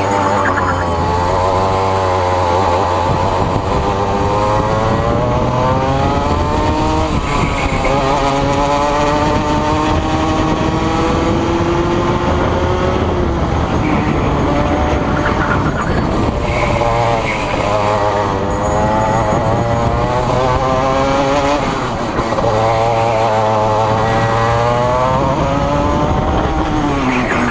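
Rotax Max 125 cc two-stroke kart engine at racing speed, its revs climbing in long rising sweeps and falling back several times as the kart accelerates out of corners and lifts for the next.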